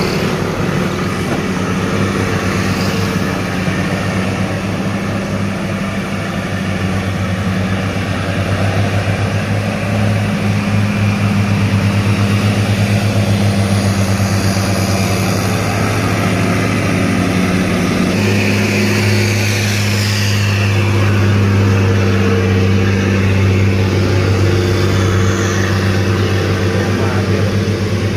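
Heavy cargo truck's diesel engine running under load on a steep climb: a steady, low drone.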